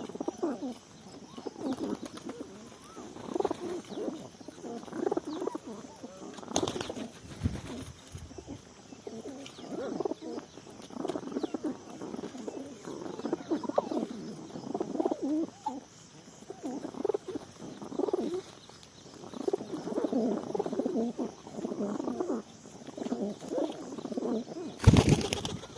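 Pigeons cooing over and over in low, repeated calls. Two brief loud noises break in, one about six seconds in and a louder one near the end.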